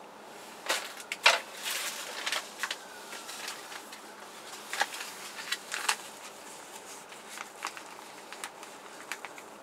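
Paper seed packets rustling and crinkling as they are handled and shuffled, in short, irregular crackles and clicks, busiest in the first couple of seconds.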